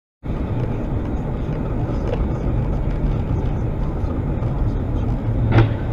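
Car driving, heard from inside the cabin through a dashcam's microphone: a steady low engine and road rumble, with a brief tap about five and a half seconds in.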